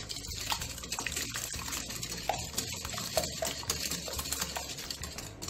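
Eggs, sugar and vanilla being beaten by hand in a glass bowl: rapid wet sloshing and slapping of the egg mixture, with quick clicks of the utensil against the glass.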